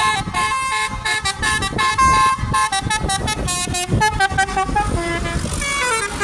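A bus's telolet horn, a multi-note musical air horn, playing a fast tune of short stepped notes, with a quick falling run of notes near the end.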